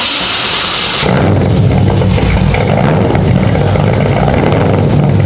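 The cammed LS V8 in a Nissan 240SX drift car turns over on the starter for about a second, then fires and idles loudly. Its sound comes out through a freshly built dual 3-inch stainless straight-pipe exhaust with an X-pipe.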